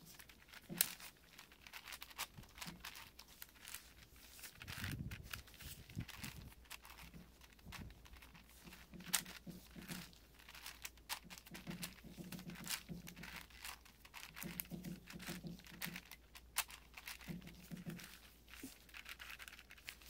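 A 6x6x6 Rubik's cube being turned by hand: irregular sharp plastic clicks and rattles of the layers rotating, as the last corners are worked into place.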